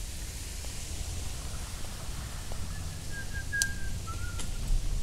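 Steady rainy outdoor ambience with a low rumble, and a brief high whistled call of two short notes about three to four and a half seconds in, with a couple of sharp clicks alongside.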